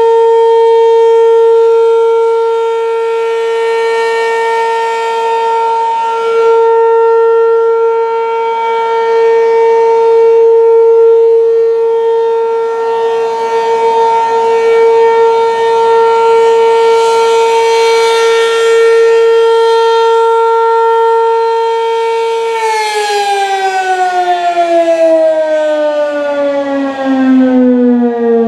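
American Signal RM-127 rotating siren sounding the Alert signal: one steady, loud tone that swells and fades slowly as the siren head rotates. About 22 seconds in, the pitch starts falling steadily as the siren is shut off and winds down.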